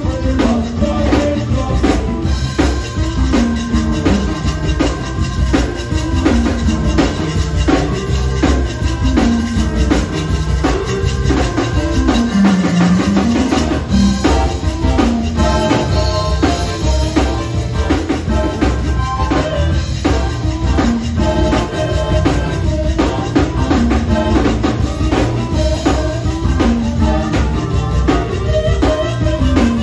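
Live zydeco band playing: accordion, electric bass and keyboard over a drum kit keeping a steady, driving beat. The bass drops out for a moment about 12 seconds in.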